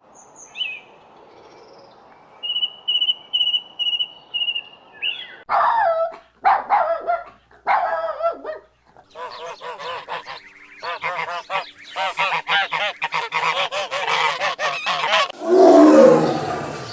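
A run of animal calls: a thin high chirping trill, then loud pitched calls that grow into a rapid series of several calls a second, and a louder, lower call near the end.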